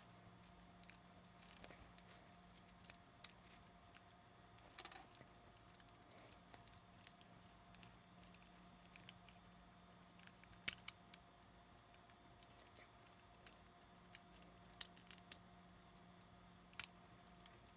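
Faint, scattered clicks and ticks of the Sony a7s camera's plastic back cover and body parts being pried and handled as the back is worked off, the sharpest click about two-thirds of the way through, over a faint steady hum.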